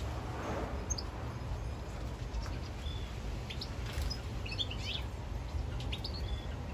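Goldfinches giving short, faint, high chirps, scattered and with a little cluster of them about two-thirds of the way through, over a steady low background rumble.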